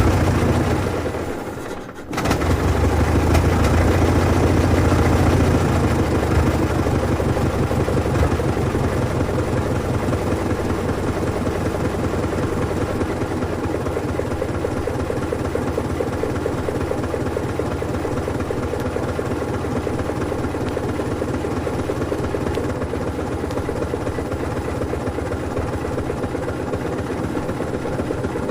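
Ford Model T four-cylinder engine running. It dips briefly about two seconds in, then runs on steadily with a rapid, even firing beat, and starts to die away at the very end.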